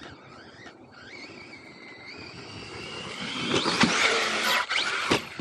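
RC truck's electric motor whining and rising in pitch as the truck speeds up and comes closer, getting louder. A few sharp knocks come near the end.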